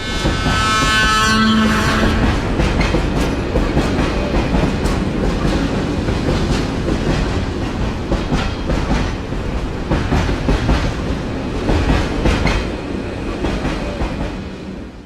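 A train passing close by: its horn sounds for the first two seconds, then the wheels rumble and clack over the rail joints. The sound is loud throughout and cuts off abruptly at the end.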